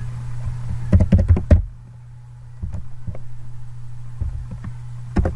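Computer keyboard and mouse clicks while a file name is typed: a quick run of about five key clicks about a second in, then scattered lighter clicks and a sharper click near the end, over a steady low electrical hum.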